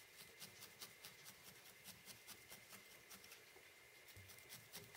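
Felting needle stabbing repeatedly into wool over a burlap-covered pad: faint, quick ticks, about four a second.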